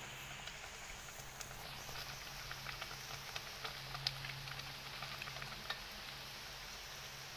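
Faint crackling and popping of small bubbles in a pot of soup that has just stopped simmering, with scattered little ticks over a steady low hum.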